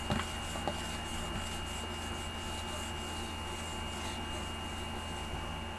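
Room tone: a steady low hum and even hiss with a thin, steady high-pitched whine, and a couple of faint clicks about a second in.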